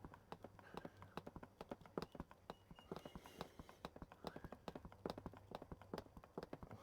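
Hand pump screwed onto a gear oil bottle being worked to pump oil into a car's differential, giving a faint, fast run of light clicks and taps.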